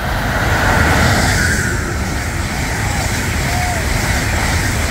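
Amtrak train of Amfleet coaches passing close at high speed: a loud, steady rush of wheels on rail and air. It comes up sharply just before the start and is loudest about a second in.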